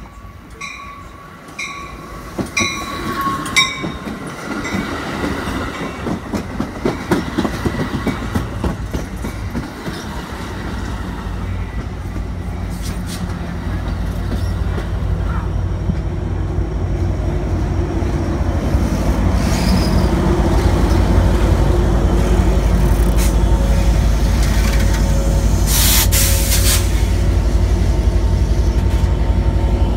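Amtrak California bilevel passenger train pulling into the station: its bell rings steadily for the first few seconds, then the wheels clack and squeal over the rails as it slows. The diesel locomotive at the rear, an EMD F59PHI, comes up alongside running with a steady low rumble that grows to the loudest sound, with a short hiss near the end.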